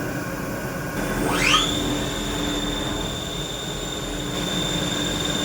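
CNC vertical machining centre spindle spinning up: a whine rises steeply in pitch about a second in, then holds at a steady high tone over a constant low machine hum.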